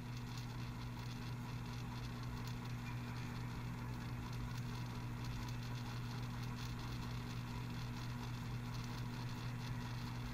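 Music cut out. There is only a steady low hum and faint light pattering of dancers' sneakers on the stage floor.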